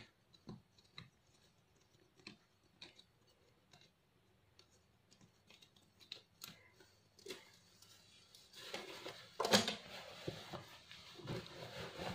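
Faint, scattered small clicks and ticks as a wooden embroidery hoop's tightening screw is loosened and the hoop worked off the fabric, then cloth rustling from about eight and a half seconds in, with one sharper knock about a second later as the hoop and garment are handled.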